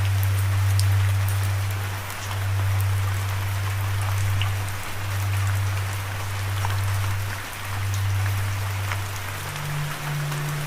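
Steady rain falling, an even hiss scattered with the ticks of single drops. Under it a low sustained musical drone is held in long notes and shifts to a higher note near the end.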